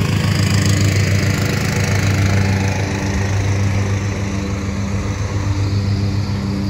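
Noisy lawnmower engine running steadily with a low, even hum.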